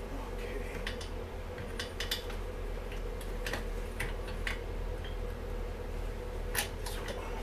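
Scattered clicks and clinks of plastic and metal parts and a small tool being handled on a Stihl MS 250 chainsaw during disassembly, the sharpest click near the end, over a steady low hum.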